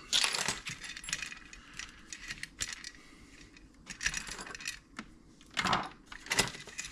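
Small metal parts and tools clinking and rattling as they are handled and set down on a workbench during power-supply disassembly: scattered light clicks and rustles, with a louder clatter right at the start, another about four seconds in and two more near the end.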